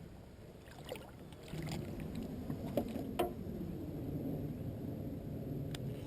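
A boat motor comes on about a second and a half in and runs with a steady low hum, with a few light knocks on the hull.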